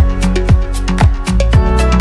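Background music with a steady beat: a deep kick drum about twice a second under sustained chords and crisp high percussion.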